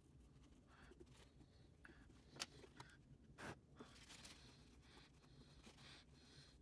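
Near silence, with a few faint, brief scrapes and rubs, the clearest about two and a half and three and a half seconds in, as leftover thermal paste is picked and wiped off a graphics card's circuit board.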